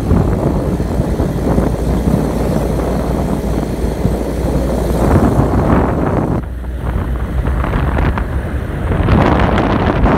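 Wind buffeting a phone's microphone over the rumble of a moving vehicle, dipping briefly about two thirds of the way through.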